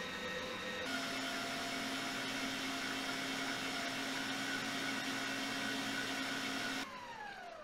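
Electric stand mixer motor running steadily with a whine as its dough hook kneads bread dough; its tone shifts to a new steady pitch about a second in. Near the end the motor is switched off and its whine falls away as it winds down.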